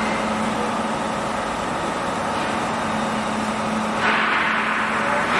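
Steady hum of a 400 W laser welding machine running. A hiss starts about four seconds in.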